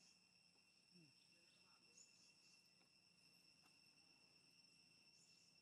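Near silence, with a faint, steady, high-pitched insect drone and a few soft, brief sounds.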